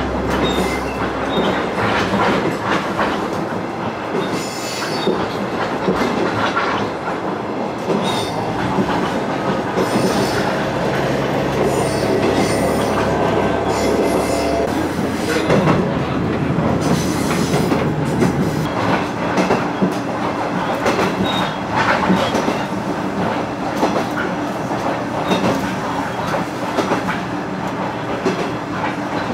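KiHa 110 series diesel railcar running along the line, heard from inside at the front: wheels clacking over rail joints with a low engine drone and a brief squeal from the wheels. The low drone drops away about halfway through.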